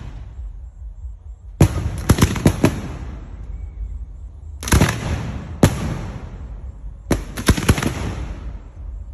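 Fireworks bursting overhead: three clusters of sharp bangs, roughly every two to three seconds, each cluster fading out in a rumbling haze.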